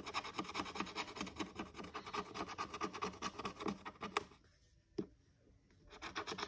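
Scratch-off sticker on a paper savings card being scratched off with quick, even back-and-forth strokes, several a second, revealing the amount underneath. The scratching stops about four seconds in, a single click follows, and it starts again near the end.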